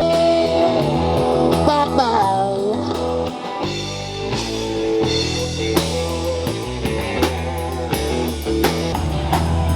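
Rock music with guitar over a drum kit beat, with held and bending guitar notes.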